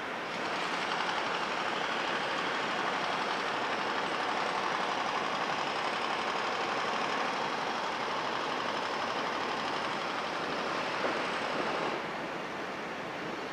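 Distant engine noise of heavy vehicles or machinery: a steady hiss without a clear pitch that swells about half a second in and eases back near the end, with one short knock shortly before.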